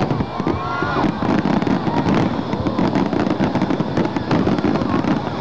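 Aerial fireworks finale: a dense, continuous barrage of bangs and crackling, many small bursts a second over a steady low rumble.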